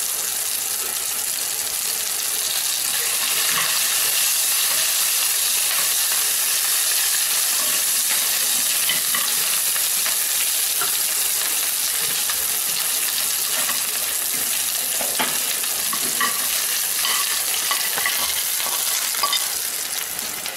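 Hot oil sizzling steadily in a nonstick pan as a tempering of urad dal, mustard seeds, dried red chillies and curry leaves fries, with a spoon stirring and scraping through it and small pops and clicks.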